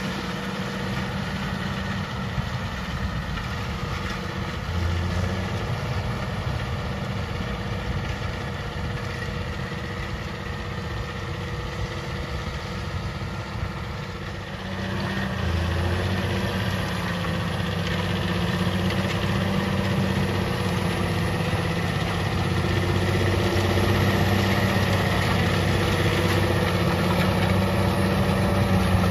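John Deere tractor engine running steadily. About halfway through it gets louder and fuller, with the pitch wavering a little afterwards, as revs or load rise.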